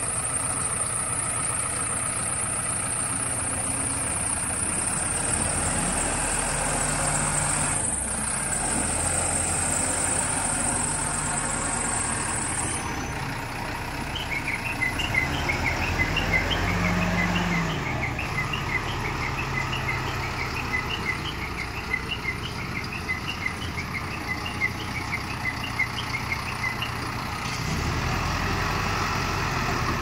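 Bull SD76 backhoe loader's diesel engine idling steadily, with high chirping in the background through the middle of the stretch.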